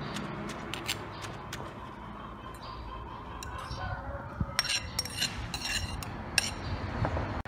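Metal spoon clinking and scraping against a ceramic plate while pushing food off it into a stone mortar. There are scattered clicks at first, then a quick run of sharp clinks in the second half.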